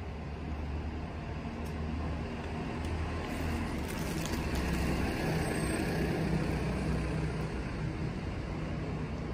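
Street traffic: a motor vehicle's engine running with a low hum and road noise, growing a little louder over the first several seconds.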